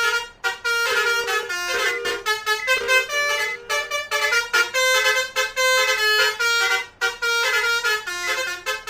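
Basuri musical air horn playing a 'telolet' tune: a run of clear horn notes stepping up and down, several tones at once, with brief breaks between phrases.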